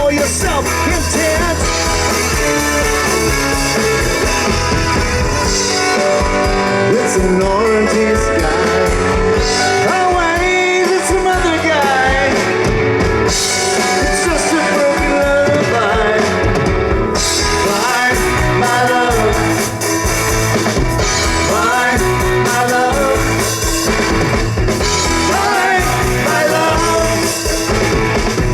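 Live rock band playing a song: electric guitar, bass and drum kit, with a lead singer's voice coming and going over it.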